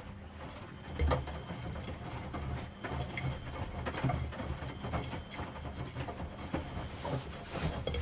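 Miele front-loading washing machine drum turning: the drive motor hums and the wet laundry tumbles and sloshes in the water, with irregular splashes and soft knocks. The hum gets louder about a second in as the drum gets going.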